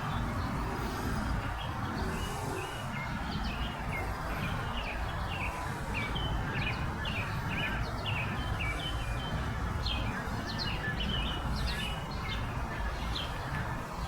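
Birds chirping in quick, repeated short notes over a steady low rumble.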